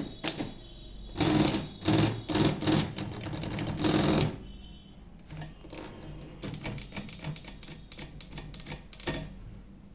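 Diamond 800TR typewriter being typed on: a run of loud, heavy key strikes in the first few seconds, then a quicker run of lighter keystrokes that stops about nine seconds in.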